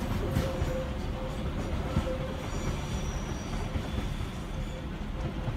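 Island Line Class 483 electric train, former London Underground 1938 tube stock, pulling away along curved track: a steady rumble that eases off, with wheels squealing thinly on the curve for about a second midway.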